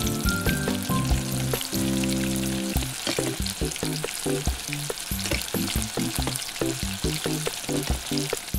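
A frying sizzle sound effect, a steady hiss, over background music whose held notes give way to shorter ones about three seconds in, with light plastic clicks and taps from a toy spatula and pan.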